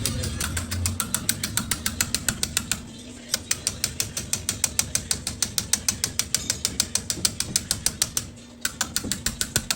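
Ratchet wrench clicking rapidly and evenly, about seven clicks a second, with brief pauses about three seconds in and near the end.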